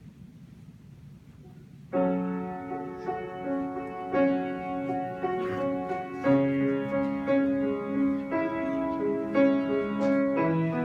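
Quiet room tone, then about two seconds in a piano starts playing slow, sustained chords that change about once a second.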